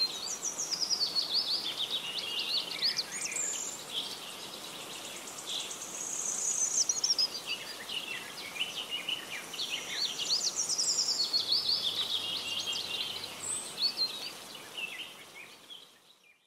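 Birdsong: many quick chirps and trills from several birds, fading out near the end.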